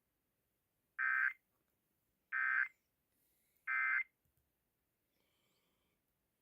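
Emergency Alert System end-of-message tones: three short bursts of SAME digital data, just over a second apart, signalling the end of the warning broadcast.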